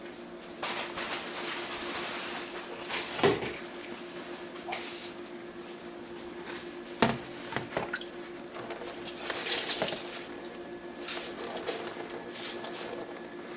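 Wet towel being pressed and rubbed into the drain sump of a countertop dishwasher to sop up standing water, giving irregular wet rubbing and splashing sounds. There are two sharp knocks, about three and seven seconds in.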